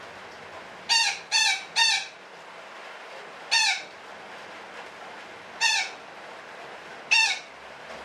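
Betet parakeet giving six harsh, screechy squawks: three in quick succession about a second in, then single squawks a second or two apart. A steady hiss runs underneath.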